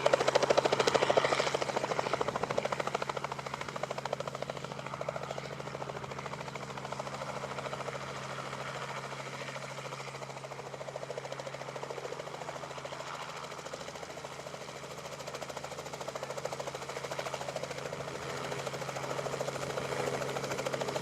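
Helicopter running, its rotor giving a rapid steady pulsing over a constant engine hum, louder at first, easing off in the middle and building again near the end.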